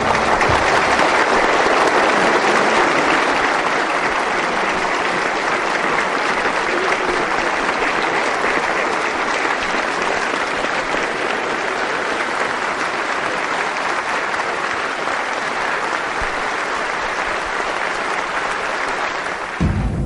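Audience applauding steadily at the end of a speech, a long unbroken clapping that cuts off suddenly near the end.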